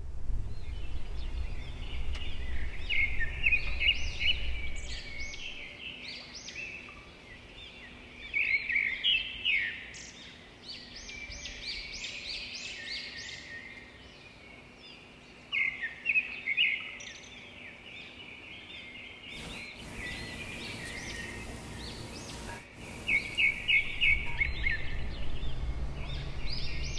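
Small birds chirping in repeated bouts of quick, high chirps, over a low background rumble that is stronger at the start and near the end.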